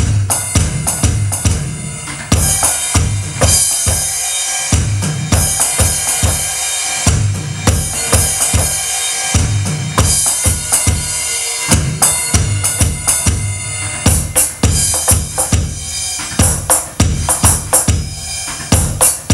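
Roland electronic drum kit played in a steady groove of kick, snare and cymbal hits, with crashes washing over the top about two seconds in and again about ten seconds in.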